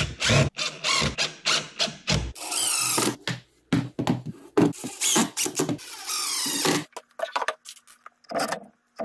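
Cordless drill/driver driving pocket-hole screws into a pine frame: a run of short bursts of the motor, then two longer runs of about a second each with a wavering high whine as the screws seat. Quieter short knocks near the end.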